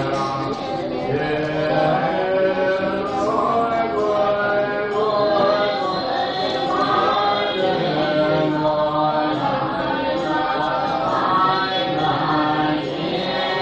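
A group of voices chanting together in a steady Buddhist devotional chant, with long held notes and slowly shifting pitch.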